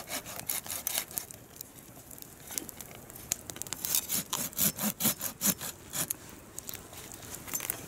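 A stick of firewood being cut by hand with a blade: a quick run of short rasping strokes on the wood, thickest in the middle stretch.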